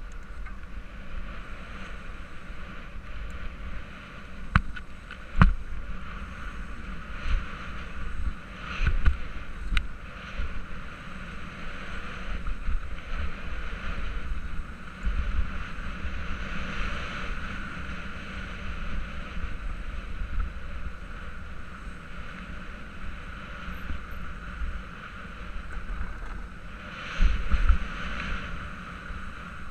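Mountain bike rolling down a dirt singletrack, with the wind rushing over the microphone and the rattle of the tyres and frame. Sharp knocks from bumps come about five and ten seconds in, and there is a rougher, louder stretch near the end.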